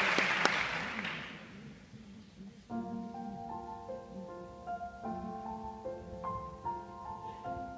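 Audience applause dying away, then a piano begins playing slow, held notes and chords about a third of the way in.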